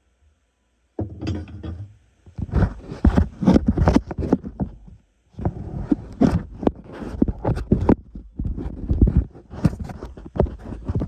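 Metal parts being handled and fitted together by hand: a busy run of knocks, clicks and scrapes starting about a second in, with a brief pause midway.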